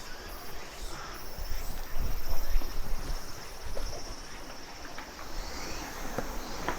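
Insects chirping steadily in the background, with a few faint clicks and a louder rush of noise about two seconds in.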